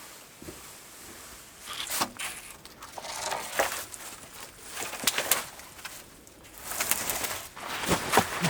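Wooden sticks and branches being handled, snapping and clattering: a series of irregular sharp cracks with rustling between them, thickest in the second half.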